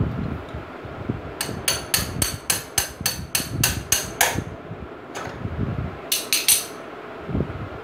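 Steel L-shaped bar striking metal parts at a motorcycle's rear wheel hub and brake lever: about a dozen quick, ringing metal-on-metal taps at roughly four a second, then a single tap and a short cluster of three or four near the end.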